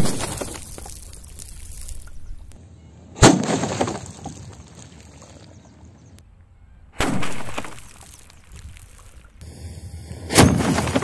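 A steel-pipe potato cannon fires into a row of big water-filled plastic bottles, which burst and splash. Four loud bangs come three to four seconds apart, each fading away over a second or two.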